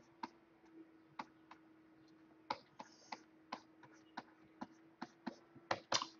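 Faint, irregular clicking and tapping of computer keys, about two or three clicks a second, a little louder near the end, over a faint steady hum.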